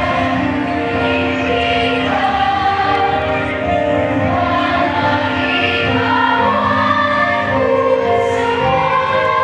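A choir singing, holding notes that change every second or so.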